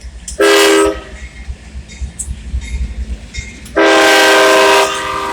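CSX locomotive air horn blowing two blasts, each a chord of several notes at once: a short one about half a second in and a longer one near the end. A low rumble from the train runs underneath.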